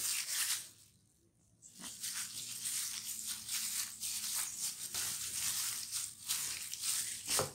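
A hand in a thin plastic glove squeezing and mixing a sticky flour-and-tapioca dough in a glass bowl: squelching dough and crinkling glove. The sound breaks off for about a second near the start, and there is one sharper click near the end.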